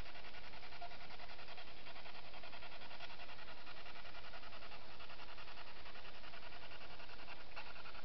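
Steady chorus of night insects: a fast, even pulsing trill at several pitches layered together, unbroken throughout.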